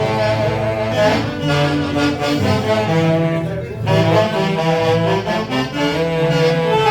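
A Jauja orquesta típica of saxophones and violins playing a tunantada, several melody lines moving together over a steady bass.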